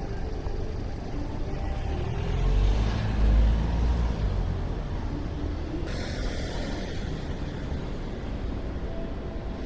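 City street traffic: a steady low rumble, with a heavy vehicle passing close by about two to four seconds in, and a short hiss starting about six seconds in.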